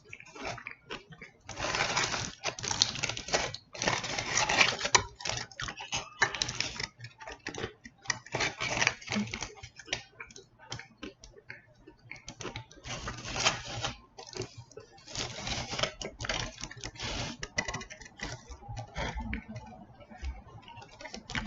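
Close-miked eating sounds: a person chewing mouthfuls of a chicken burrito, in irregular bursts of wet clicks and rustles.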